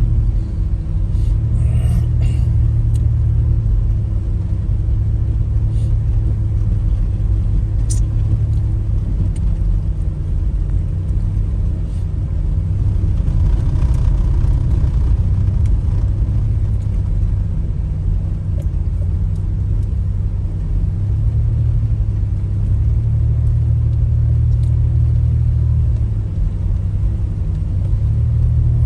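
Steady low rumble of a car on the move, engine and road noise droning, with a few faint clicks in the first couple of seconds.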